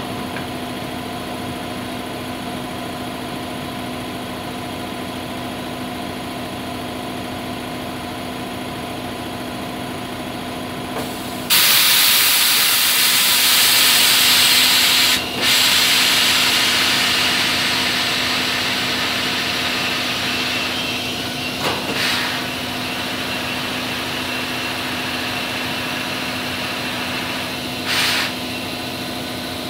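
Compressed air hissing loudly from a tire changer's air hose as a tire is inflated: it starts abruptly partway through, cuts out briefly, then tapers off, with two short bursts of air later. A steady engine-like hum runs underneath.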